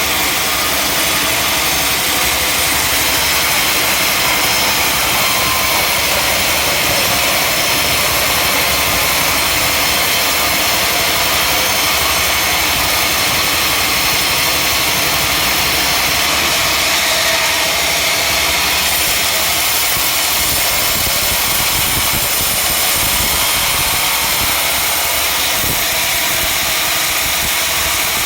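Sawmill machinery running steadily: a loud, continuous mechanical noise with no breaks or changes.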